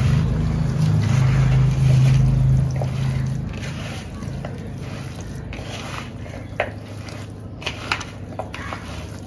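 Hands squishing and kneading raw chicken pieces with spices and oil in a plastic bowl, wet squelching with a few small clicks. A low steady drone runs through the first three seconds or so and then fades away.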